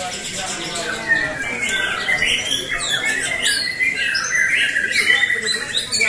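Several caged white-rumped shamas (murai batu) singing at once against each other: overlapping loud whistles, rising and falling phrases and chirps, with a fast buzzy trill about two-thirds of the way in. Low crowd chatter runs underneath.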